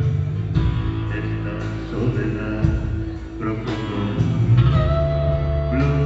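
Live blues band playing amplified: electric guitars over bass and drums.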